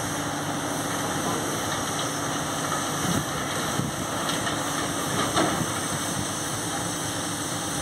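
SM42 diesel-electric shunting locomotive's engine running steadily as it slowly hauls hopper wagons, with a few sharp clanks about three, four and five and a half seconds in.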